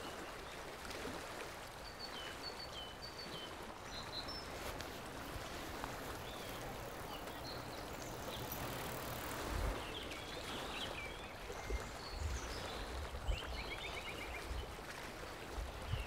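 Faint outdoor river ambience: a steady hiss with scattered short bird chirps and a brief trill near the end. A few low bumps come in the middle.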